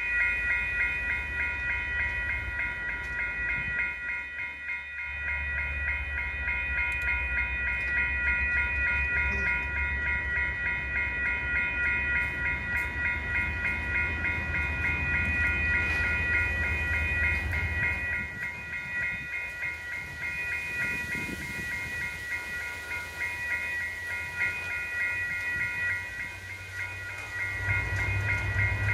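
Railway level-crossing warning bell ringing steadily with rapid, even strokes as the crossing signals flash and the gates come down. A low rumble runs underneath and grows near the end.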